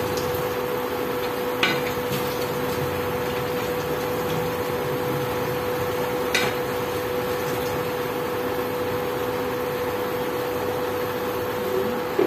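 Induction cooktop running under a frying pan, giving a steady hum with a constant mid-pitched tone. Two brief clicks come about one and a half and six and a half seconds in.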